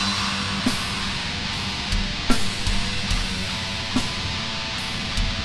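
Black metal song: dense distorted electric guitars over drums, with a sharp drum hit landing about every second and a half.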